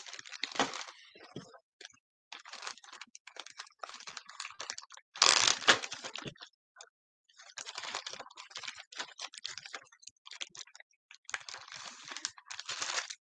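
Irregular crinkling and rustling of packing material being handled, with a louder crumple about five seconds in.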